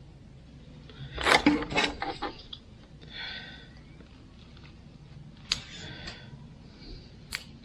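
Hand work with tools and small parts: a short clatter of knocks and rattles about a second in, then a few single sharp clicks, with brief hissy breaths between.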